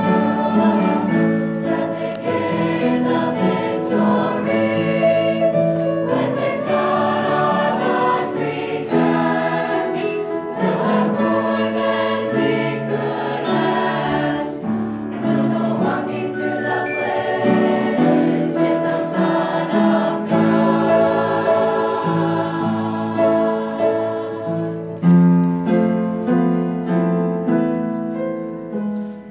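Mixed choir of teenage boys and girls singing together.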